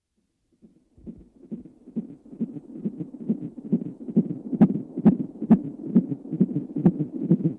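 Low, heartbeat-like thumping on the soundtrack, about two beats a second, fading in after a second of silence and growing steadily louder.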